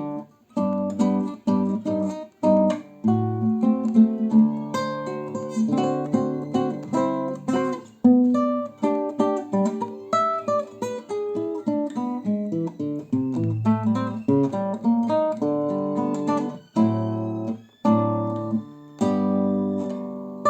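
Solo acoustic guitar playing a Brazilian choro: a plucked melody over a moving bass line, with strummed chords and a few brief breaks between phrases.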